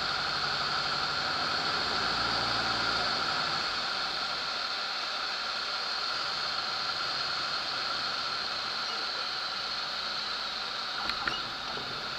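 Steady engine and wind noise inside the cockpit of a Zenair CH-300 light airplane on landing approach, with the engine throttled back. A couple of short knocks about eleven seconds in, as the wheels touch down on the runway.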